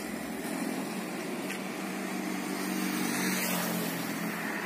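A motor vehicle engine running steadily in the background: an even drone with a faint low hum.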